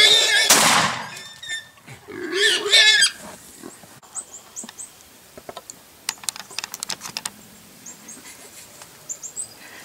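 Shot feral hogs squealing: a loud strained squeal in the first second and another about two and a half seconds in. After that come a run of sharp clicks and rustles about six to seven seconds in, and faint high chirps.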